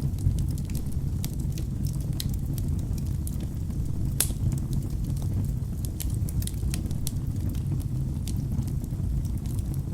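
Wood fire burning in a fireplace: a steady low rumble of flames with frequent sharp crackles and pops from the burning logs, one pop standing out about four seconds in.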